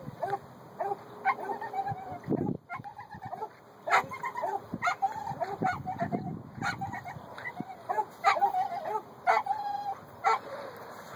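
Repeated short, pitched animal calls coming irregularly, some wavering in pitch.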